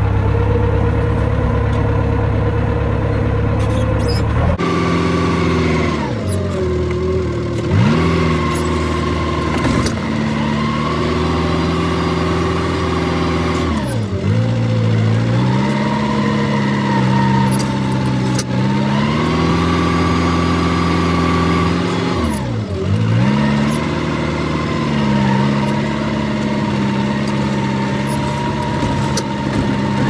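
Tractor's diesel engine heard from inside the cab. It runs steadily at first, then its revs drop sharply and climb back up several times as it works.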